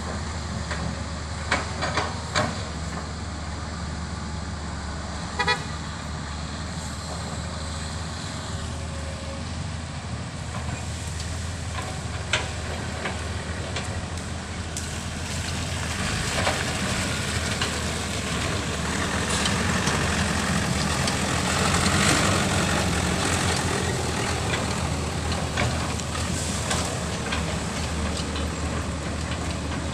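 Heavy vehicle engine running steadily, growing louder past the middle and easing again, with a few sharp knocks early on.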